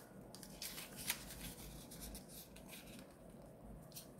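A sheet of colored origami paper being folded and creased by hand: soft, brief rustles and crinkles of paper a few times.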